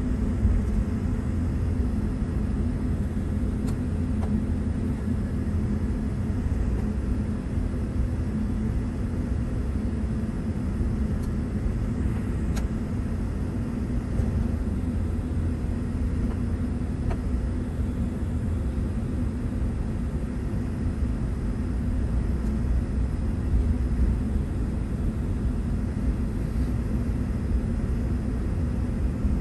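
Cabin noise of a jet airliner taxiing after landing, heard from inside the cabin: a steady low rumble of the engines at idle and the aircraft rolling along the taxiway.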